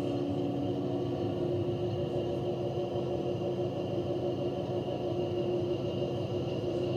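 Chairlift drive motor running at the loading station: a steady hum with a thinner high whine held over it.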